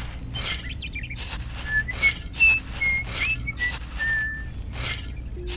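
A tiny metal shovel scooping dry rice grains and tipping them into a plastic toy trolley bed, a short hissing scrape about every half second, with a run of short whistled notes over it in the first few seconds.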